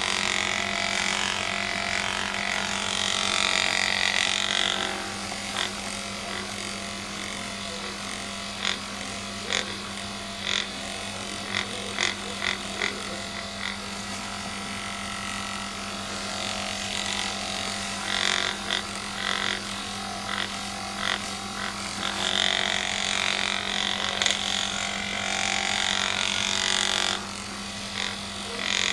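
Magnessage handheld vibrating magnetic massager buzzing with a steady low hum, pressed against a cat's fur. Irregular clicks and scuffs run through it, and a brighter rustling hiss comes and goes, loudest at the start and again about two-thirds of the way in.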